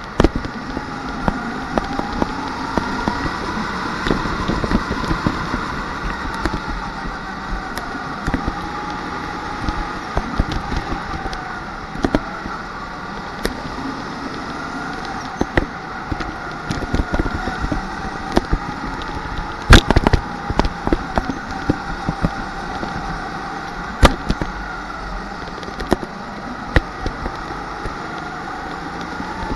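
Rental racing kart heard from on board at racing speed, its motor pitch dropping into each corner and climbing again on the exit. The run is peppered with sharp knocks and clatters, the loudest about two-thirds of the way through.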